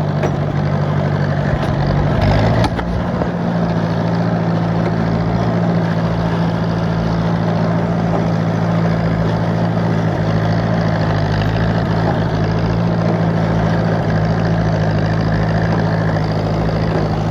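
Tractor engine running steadily while the tractor works through deep snow, its note shifting slightly about two and a half seconds in.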